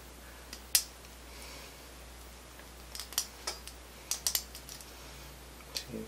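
Small metallic clicks and light scrapes of a 0.023-inch short hook pick working the pin stack of a Schlage mortise cylinder under tension, coming irregularly: one about a second in, then a close cluster in the middle of the stretch, and one more near the end.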